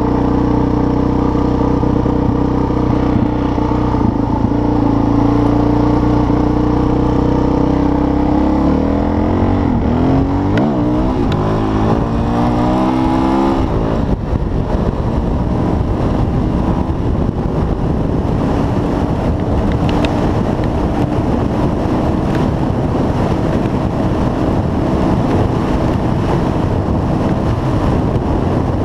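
Suzuki DR-Z400's single-cylinder four-stroke engine running hard at high speed: a steady note at first, then its pitch sweeping up several times about a third of the way in. From about halfway, wind rushing over the microphone largely covers the engine.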